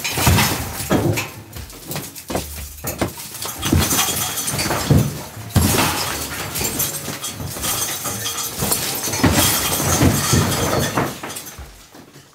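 Bricks and masonry rubble being knocked off the top of a brick wall and crashing down one after another, an irregular run of clattering, shattering impacts that dies away near the end.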